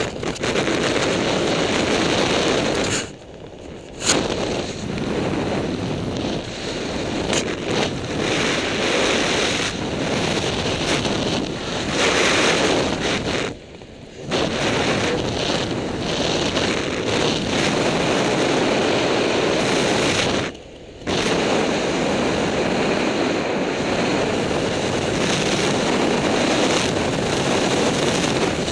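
Wind rushing over the microphone as the parachutist descends under an open canopy, a steady loud rush that drops away briefly three times.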